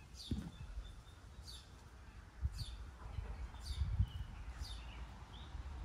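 A bird calling: a short high chirp sliding downward, repeated about five times at roughly one a second, over a low rumble.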